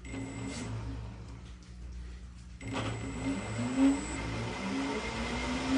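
A large 3D-printed electric ducted fan engine spinning up about two and a half seconds in, after a low hum: a rush of air with whining tones that climb in pitch and get louder.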